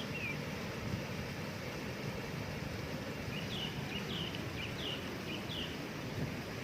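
Steady rush of a waterfall, with a bird calling over it: a short call at the start, then a run of about five short, falling notes a little past halfway.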